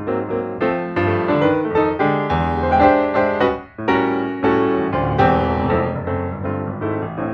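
Background piano music: a lively stream of quick notes, with a brief pause a little before the middle.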